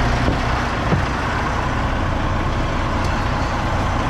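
Semi-truck's diesel engine idling steadily, with a light knock about a second in.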